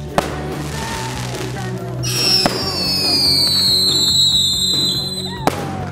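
Aerial fireworks going off with sharp bangs: one just after the start, one about two and a half seconds in and one near the end. Between the last two, high whistling tones slide slowly down in pitch. Background music runs underneath.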